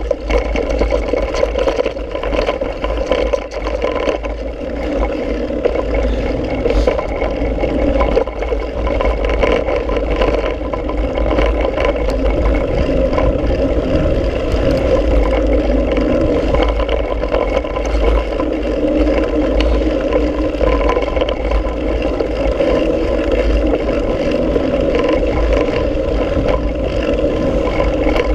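Mountain bike ridden fast down a dirt trail: a steady rush of wind on the microphone with the low rumble of the tyres rolling over the dirt.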